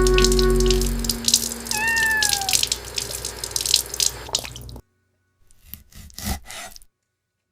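Background music stops about a second in, giving way to rapid clattering and splashing-like noise. A single cat meow sounds about two seconds in. After a brief pause come a few separate knocks.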